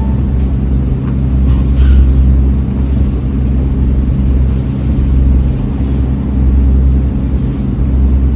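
Steady low machine hum with a constant droning tone.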